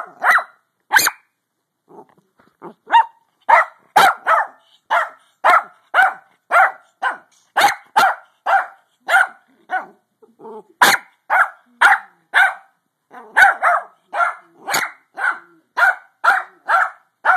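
Small dog barking over and over in short, sharp, fairly high barks, about two a second, with a brief pause a second or so in.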